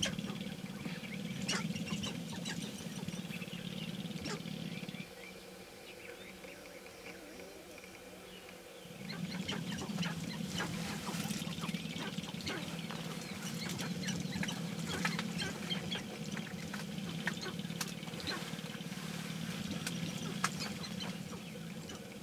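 A lek of sharp-tailed grouse calling and dancing: a dense patter of short clicks and brief calls, with the rattle of displaying males' stamping feet and tail feathers. Under it runs a steady low hum that drops out for about four seconds a quarter of the way in.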